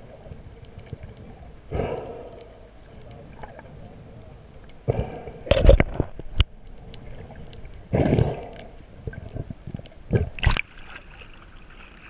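Water heard through a submerged action camera's housing: a faint steady crackle of clicks, with muffled gurgling, sloshing whooshes about two seconds in, around five to six seconds, near eight seconds and around ten and a half seconds.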